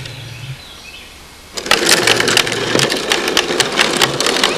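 Plastic toy wheelbarrow rolling over a concrete sidewalk, its wheel clattering and rattling. It is quieter at first, then a dense, steady rattle starts about one and a half seconds in.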